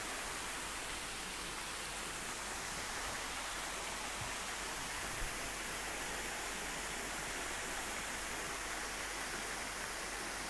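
Steady, even hiss with no speech, with a single faint tick about five seconds in.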